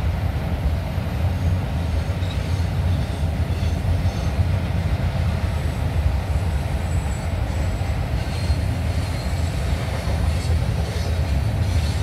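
Freight cars of a manifest train rolling past, a steady low rumble of steel wheels on the rails. A faint high wheel squeal joins in about two-thirds of the way through.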